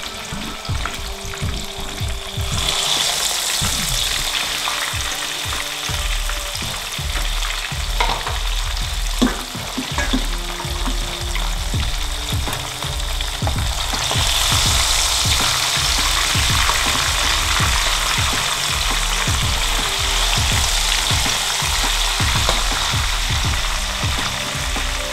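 Fish pieces frying in hot oil in a wok: a steady bubbling sizzle, louder about two and a half seconds in and louder again about halfway through.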